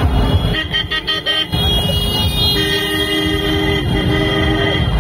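Vehicle horns honking in slow street traffic: a few short toots about a second in, then one long steady blast lasting about two seconds, over a continuous low engine and traffic rumble.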